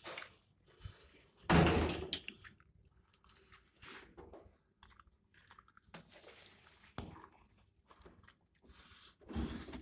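Knocking and clattering of a top-load washer's inner basket and its parts being handled and pushed down by hand to test the suspension rods, with a loud clatter about a second and a half in and another knock near the end.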